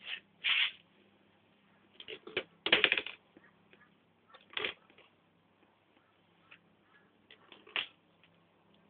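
Plastic mesh laundry basket scraping and knocking on a tiled floor as a baby pushes it about, in several short bursts, the loudest about three seconds in.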